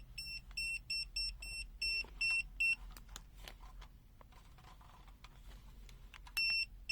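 Digital multimeter's non-contact voltage (NCV) detector beeping as it senses a live mains cable: short high beeps, about two to three a second. The beeping stops about three seconds in and starts again near the end.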